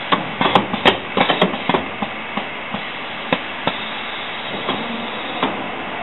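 Automatic crimp-press cell cycling: a quick run of sharp clicks and clanks over the first two seconds, then single clicks spaced out over a steady machine hum, as the transfer table and pick-and-place gripper move the synchronizer gear parts.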